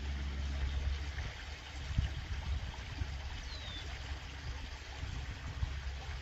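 Water steadily trickling and splashing down the small rock cascade of a garden pond, over a steady low rumble.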